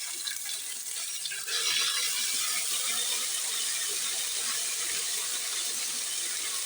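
Cumin seeds, ginger paste and garlic sizzling in hot oil in a pan: a steady hiss that gets louder about one and a half seconds in.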